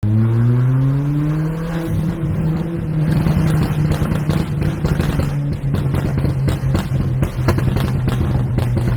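Volkswagen Polo GT with a custom exhaust accelerating, its engine note rising over the first two seconds. The engine then holds steadier while the exhaust crackles and pops in quick, dense bursts.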